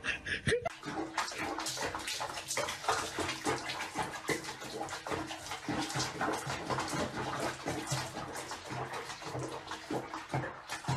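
Water sloshing and splashing in a washbasin around a wet cat sitting in it, a dense run of small splashes.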